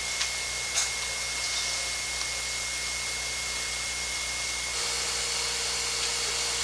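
Steady background hiss with a thin high whine, and two small clicks in the first second; no speech.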